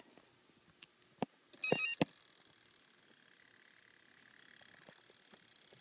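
Battery connector clicking as it is plugged in, then a short burst of stepped electronic tones as the Tekin ROC412 brushless speed control powers up. A faint, steady, high-pitched whine with a fast pulse follows.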